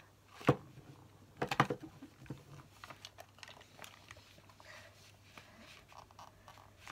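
Small plastic stamps and an ink pad being handled on a tabletop: two sharp knocks, about half a second and a second and a half in, then light clicks and rustling as a stamp is fiddled with in the hands.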